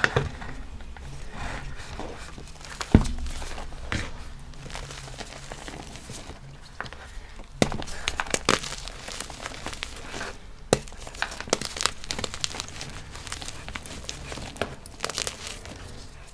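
Blocks of gym chalk being crushed and crumbled: irregular crunchy crackling and sharp snaps, with one loud crack about 3 seconds in and busier snapping from about halfway through.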